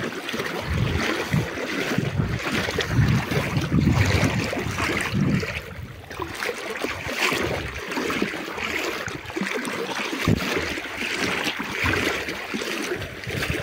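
Wind buffeting the microphone in irregular low gusts over a steady rush of flowing floodwater.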